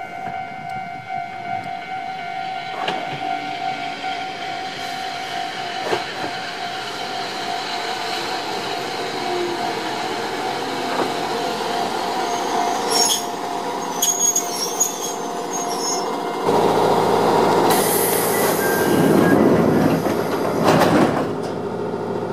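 Chichibu Railway 1000 series electric train (ex-JNR 101 series) pulling into a station and braking to a stop, its running noise building, with a steady ringing tone behind it and brief high squeals near the stop. About sixteen seconds in, the sound cuts abruptly to the louder noise inside the train's driver's cab.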